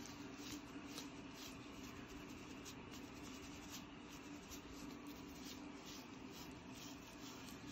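Faint scratching of a red plastic rat-tail comb against a flaky scalp, a run of many light, quick scrapes as the comb works loose dandruff flakes.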